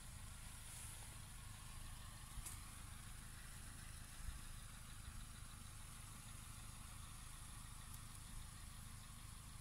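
Quiet outdoor background: a faint, steady low rumble under a light hiss, with a soft knock about four seconds in.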